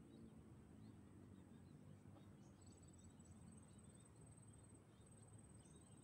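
Near silence: faint outdoor ambience with a low rumble, scattered faint bird chirps, and a thin, high, pulsing insect trill that comes in about two and a half seconds in.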